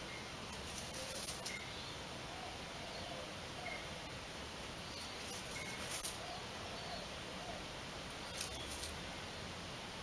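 Rabbit digging in dry, loose soil: short bursts of scratching and scraping as its paws work the dirt, three in all, about a second in, around the middle and near the end, the middle one the loudest.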